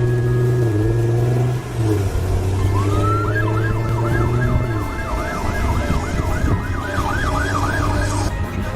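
Emergency vehicle siren in a fast yelp, wailing up and down about three times a second for several seconds over a low steady vehicle rumble. The siren starts about three seconds in and stops near the end.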